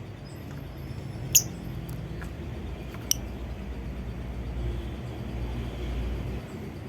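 Lovebird giving two short, sharp high chirps, the louder about a second and a half in and a weaker one about three seconds in, over a low rumble that swells near the end.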